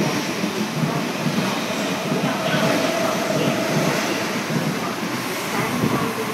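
MTR SP1900 electric multiple unit running through a station at speed without stopping: a steady rush of wheels on rail as the cars pass close by.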